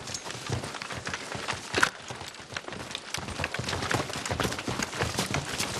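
Horse hoofbeats, a dense irregular run of thuds and clicks, from a war-film soundtrack played back over a conference room's speakers.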